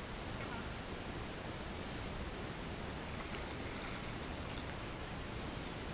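Steady, even outdoor background noise with no distinct event standing out.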